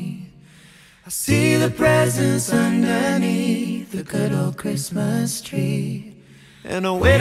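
Background music of a cappella singing. It starts about a second in after a brief pause, and there is another short break near the end.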